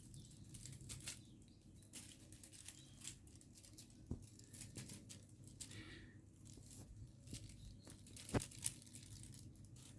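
Faint, irregular rustling and light taps of cats playing, with two sharper taps, one about four seconds in and one near the end.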